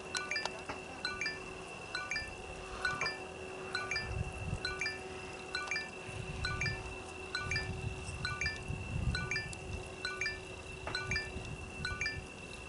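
Short, high chime-like pings repeating about twice a second over a steady high tone, with occasional low gusts of noise.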